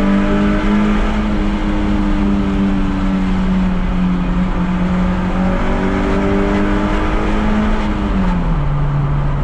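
Toyota MR2 AW11's mid-mounted twin-cam inline-four held at high revs, heard from inside the cabin in a tunnel. The engine note sags slowly, then drops sharply about eight seconds in as the revs fall.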